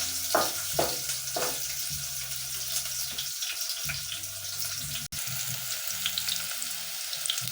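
Onions sizzling as they fry in hot oil in a sufuria, with a few short stirring strokes in the first second and a half.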